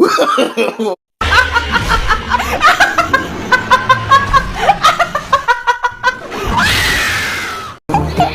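People laughing hard in quick repeated bursts of "ha". Near the end comes a longer swelling noise that cuts off suddenly.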